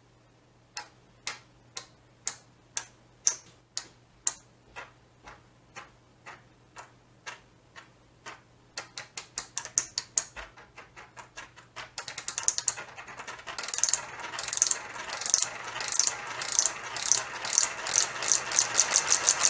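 Small push-pull solenoids clicking as they are fired in sequence by a MOSFET driver board. The clicks come about two a second, speed up after about nine seconds, and become a fast, continuous rattle from about twelve seconds.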